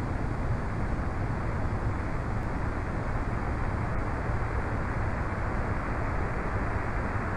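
Onboard sound of a Falcon 1 rocket climbing under its first-stage Merlin engine: a steady, even rumble, heaviest in the low end.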